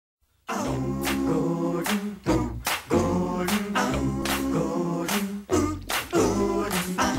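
Cartoon theme song starting about half a second in: a group of voices singing in harmony over a beat marked by sharp percussive hits.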